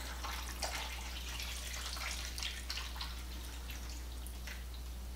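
Chicken broth poured from a can into a slow cooker full of diced tomatoes and chopped vegetables: faint splashing and dripping that thins to scattered drips as the can empties, over a low steady hum.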